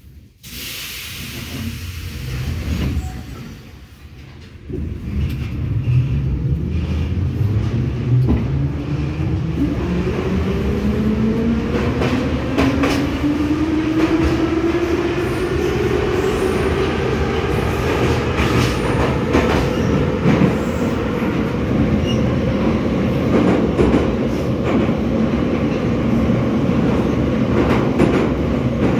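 Saint Petersburg metro train pulling away from a station: after a quieter few seconds, a whine rises in pitch over about ten seconds as the train speeds up, then levels off into a steady running rumble with wheel clatter on the rails.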